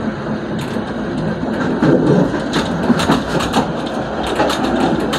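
Moving train's steel wheels rumbling on the rails, with irregular sharp clacks as they run over rail joints and switch points, heard from the rear cab.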